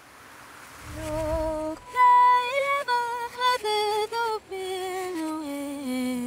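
A woman singing alone, a wavering, ornamented line with many notes to one breath that steps down in pitch. It begins over a rising hiss and a brief low rumble.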